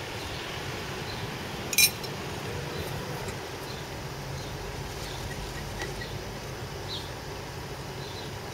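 A pan of shrimp in sauce cooking over a burner: a steady low hum with a faint sizzle. About two seconds in, a metal spoon clinks once sharply against the dish.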